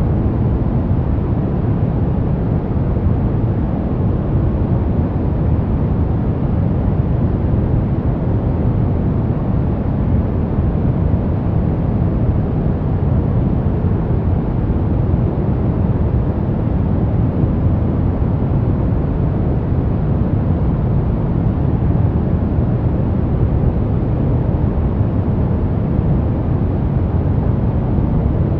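Steady, unchanging noise from a white-noise sleep track, heavier in the low range, so it sounds deep and muffled rather than hissy.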